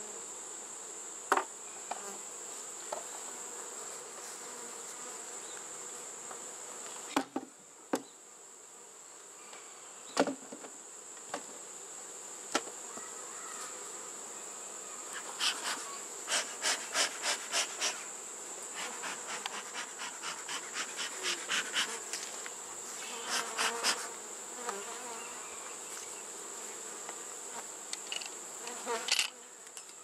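Honey bees buzzing as a colony crowds the entrance of a wooden hive box and walks in, over a steady high-pitched whine. A few sharp knocks are scattered through, and about halfway through comes a rapid run of short repeated pulses, about three a second.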